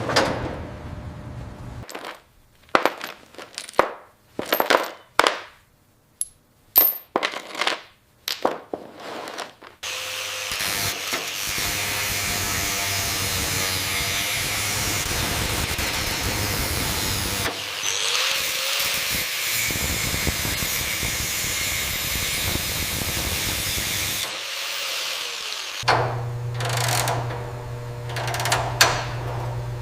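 Workshop tool sounds: a string of separate metal knocks and clanks. Then a power tool runs steadily with a harsh hiss-like noise for about fourteen seconds, with one short break. Near the end a low steady hum comes in with a few more knocks.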